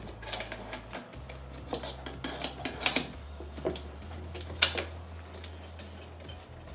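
Small metal clicks and taps as a mini red-dot sight is slid along and seated on a Picatinny side rail, with the loudest click about four and a half seconds in.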